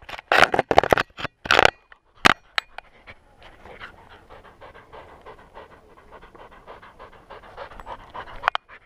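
Welsh Springer Spaniel puppy panting rapidly, heard close up from a camera on its collar, several breaths a second. A few loud, rough bursts of noise come right at the microphone in the first two seconds.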